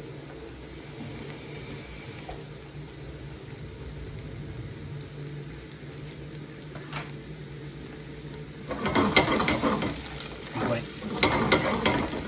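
Chopped onions sizzling quietly in an aluminium pan, then a metal spoon stirring and scraping them around the pan in two louder spells, about nine and eleven seconds in.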